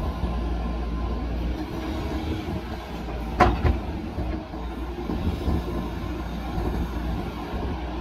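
JCB backhoe loader's diesel engine running steadily under hydraulic load as the backhoe swings back from the truck and digs into a soil pile. Two sharp clanks come a quarter second apart, about three and a half seconds in.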